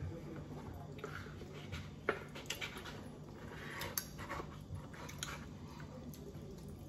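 Spoons tapping and scraping against dishes of gelato: scattered light clinks and ticks, the sharpest about two seconds in and again about four seconds in.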